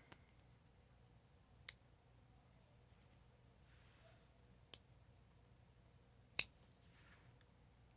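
Four sharp metallic clicks spaced a second or more apart, the last the loudest: a Gerber Dime multi-tool being handled, its spring-loaded pliers and fold-out parts snapping into place.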